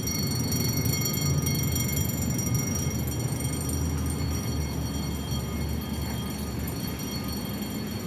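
Electric alarm bell ringing continuously, a steady high ring over a low rumble. The owner takes it for a sprinkler system's water-flow alarm, set off by a leak somewhere in the system, though he could be wrong.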